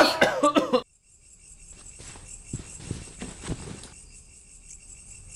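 Crickets chirping in a steady, pulsing high trill, with a few soft knocks in the middle.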